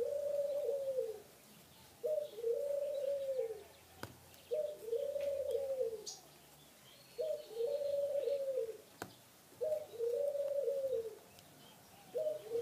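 A dove cooing over and over: each call is a short note followed by a longer arched coo, repeated about every two and a half seconds.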